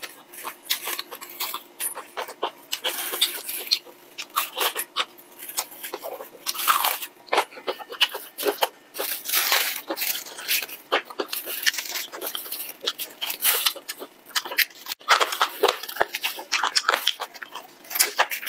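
A person biting and chewing crispy bone-in fried chicken: a close, irregular run of crisp crunches from the battered coating.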